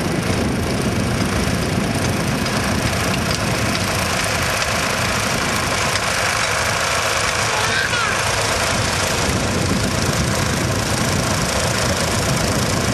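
Vintage tractor engine running steadily while the tractor drives across tilled soil pulling a rotary cultivator.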